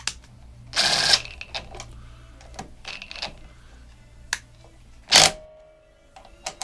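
Cordless impact driver run in two short bursts, about a second in and about five seconds in, snugging down a lawnmower's carburettor mounting nuts only lightly, with light clicks of the tool and socket in between.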